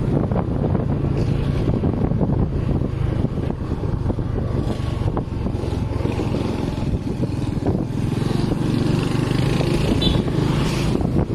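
Motorcycle engine running steadily at cruising speed, heard from on board, with wind noise on the microphone.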